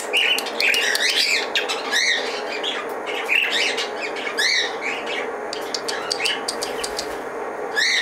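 Budgerigar chirping and squawking in short calls that rise and fall quickly, repeated every second or so, with runs of quick sharp clicks in between.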